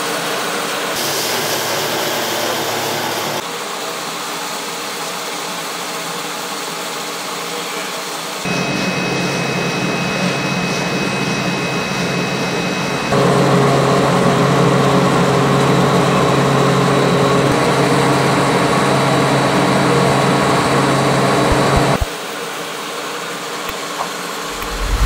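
Foam extrusion line running: a steady mechanical hum with a few faint whining tones. It changes abruptly in level and tone several times and is loudest through the second half.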